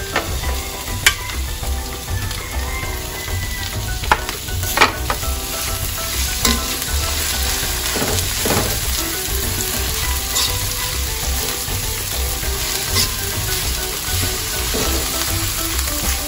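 Raw ground pork sizzling as it fries in hot oil and garlic in a stainless steel wok, stirred with a metal spoon that clicks and scrapes against the pan a few times in the first several seconds.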